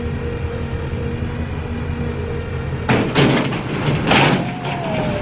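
Heavy vehicle engine running steadily, then two loud, sharp bursts of noise about three and four seconds in.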